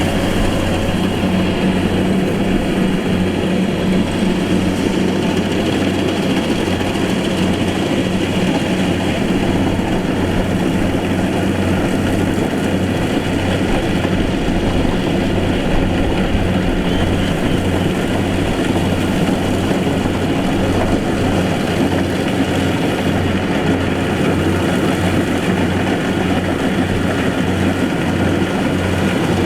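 Combine harvester's diesel engine running steadily at working speed, with the machine's running noise over it.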